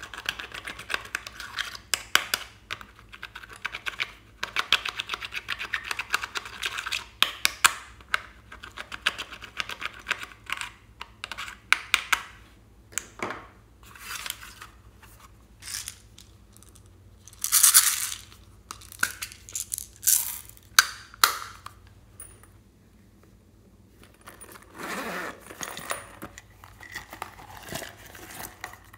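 Small metal tool scraping and tapping eyeshadow out of the pans of a plastic toy makeup palette: a dense run of quick scratches and clicks, then sparser plastic clacks as the palette case is handled and closed, the loudest a little past halfway.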